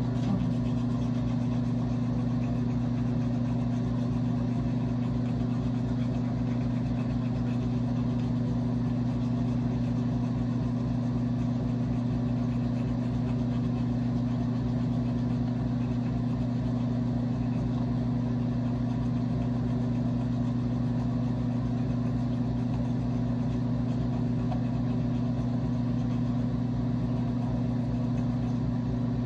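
A steady low electrical hum, unchanging in pitch and level.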